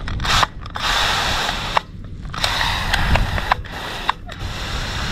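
Water showering from a watering nozzle onto soil and planting basins, a steady hiss that stops briefly twice, near two seconds and about four seconds in.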